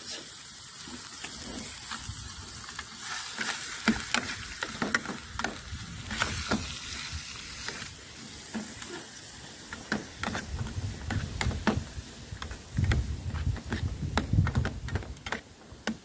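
Food frying with a steady sizzle in a British Army mess tin over a burning solid-fuel tablet, with scattered clicks and scrapes as the contents are stirred and moved around in the tin, heavier handling noise in the later part.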